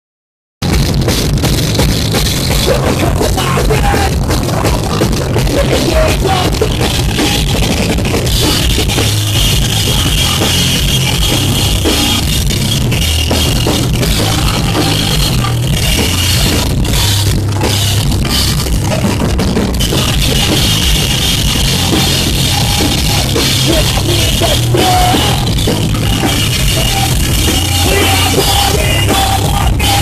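Post-hardcore rock band playing live at full volume: drum kit with cymbals, distorted guitars and bass, and a vocalist at the microphone.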